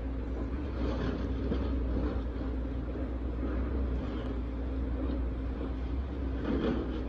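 Cat purring steadily while being stroked on the cheek: a continuous low rumble, the sign of a contented cat.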